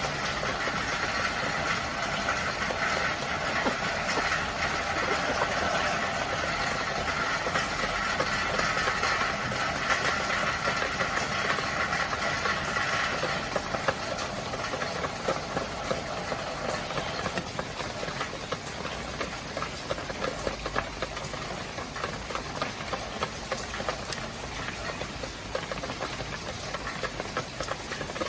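Heavy rain falling steadily, a dense hiss of many small patters, with a higher steady band in it that fades out about halfway through.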